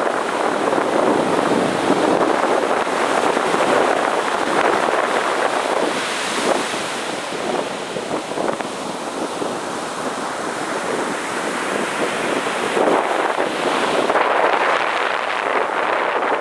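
Heavy ocean surf breaking and washing on a beach, a continuous rushing wash that swells and eases, dipping a little past the middle and building again near the end. Wind buffets the microphone.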